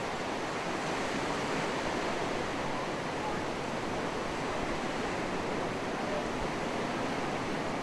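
Sea surf washing onto a rocky coral shore, a steady rush of breaking waves.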